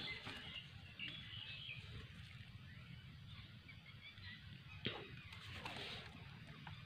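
Dry leaf litter rustling under a hand searching the forest floor, with one sharp crackle about five seconds in, over faint chirps of small birds.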